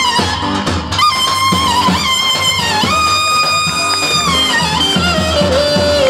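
Roman havası dance music: a lead melody holds long notes that slide up and down between pitches over a steady drum beat.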